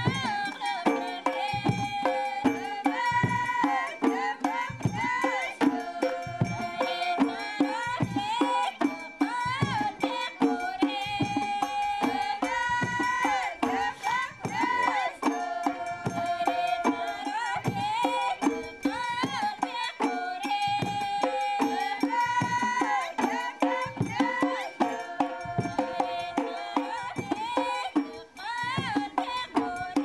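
Background music: a melody of held and shifting notes over a steady percussion beat.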